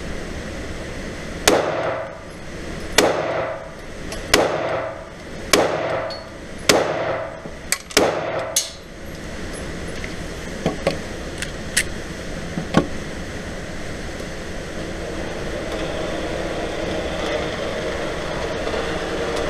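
Six shots from a Glock 43 9mm pistol fired at a steady pace, about one every one and a quarter seconds, each with a ringing echo off the indoor range walls. A few fainter, sharper cracks follow, then a steady mechanical hum builds near the end.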